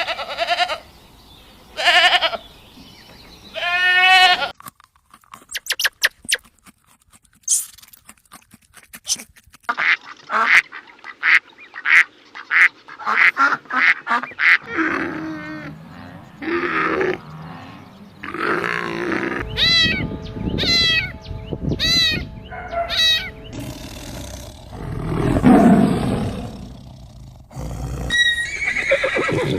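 Farm animals and birds calling one after another in a string of short clips, each call pitched and repeated in runs: a long call near the start, quick rapid calls in the middle, and high wavering calls later on, with some music underneath.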